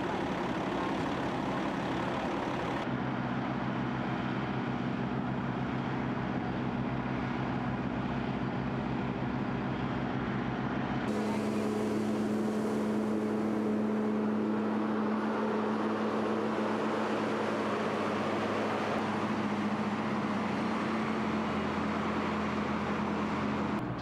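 Truck engines running steadily, the sound changing abruptly at two cuts. In the second half, a water truck's engine runs with the hiss of its spray wetting down a dirt road.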